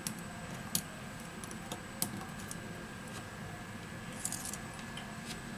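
Light metallic clicks and taps of tweezers working on a smartphone's opened frame and small metal parts being set down on a silicone mat, over a steady faint hum. A few separate clicks come in the first two seconds, then a short quick cluster about four seconds in.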